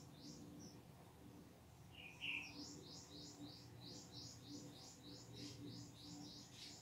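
A bird chirping faintly: a rapid run of short, high chirps, about five a second, starting a couple of seconds in after a brief lower chirp.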